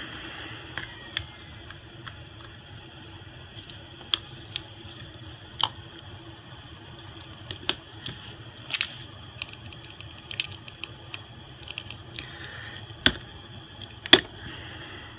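Irregular small clicks and taps from a smartphone and small parts being handled on a work surface during a screen swap, over a steady background hiss. Two sharper clicks come near the end.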